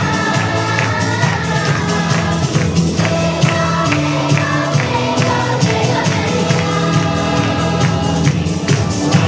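Children's choir singing together over instrumental accompaniment with a steady beat.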